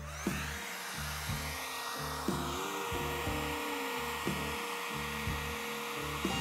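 Cordless trim router (Sturm CER1803) running with a steady high motor whine, under background music with a steady bass pattern.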